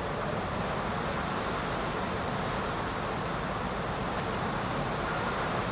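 Steady, unbroken background noise of road traffic, even in level throughout.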